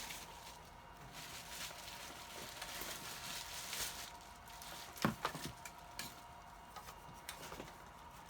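Radio gear and packing being handled while a box is unpacked: rustling, with a few sharp knocks about five seconds in and lighter clicks after, over a faint steady hum.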